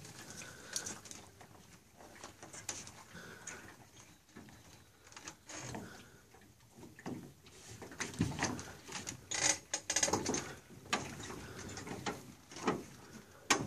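Water sloshing and splashing around a man wading and an aluminum fishing boat being guided alongside a dock, with a run of sharp knocks and splashes about eight to eleven seconds in.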